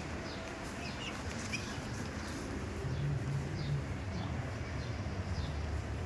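Small birds chirping in short high notes over a steady low rumble.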